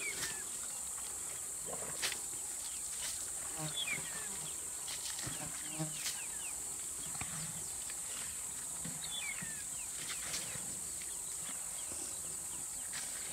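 Steady high-pitched drone of insects over the bush, with a few short falling bird chirps and scattered faint clicks.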